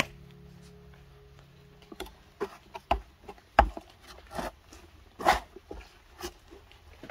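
A series of irregular sharp knocks and thuds, about a dozen over a few seconds, starting about two seconds in.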